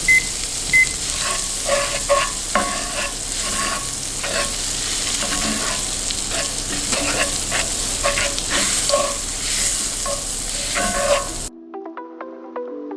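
Crumbled sausage, butter and flour sizzling in a frying pan as the flour is cooked out for sausage gravy, with a utensil stirring and tapping against the pan. A kitchen timer beeps a few times near the start as it is set, and the sound cuts to background music near the end.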